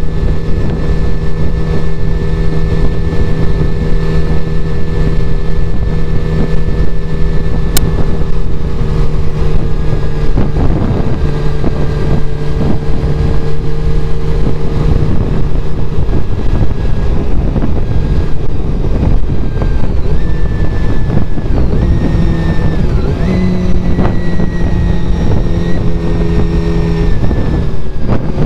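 Honda CBR400RR (NC23) inline-four motorcycle engine running at a steady cruising note, shifting pitch a few times and easing off near the end, under heavy wind buffeting on an unshielded helmet microphone.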